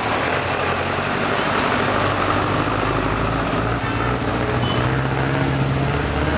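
Street traffic: a motor vehicle's engine runs close by with a low steady hum that rises slightly about four to five seconds in, over a continuous road noise.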